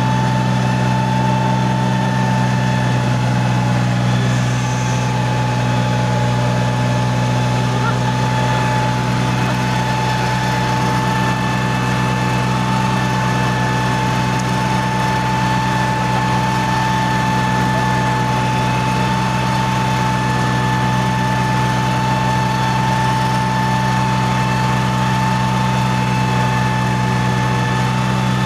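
Farm tractor's diesel engine running steadily while towing a broken tractor through a muddy rice field, heard from the driver's seat, with a steady whine over the engine note.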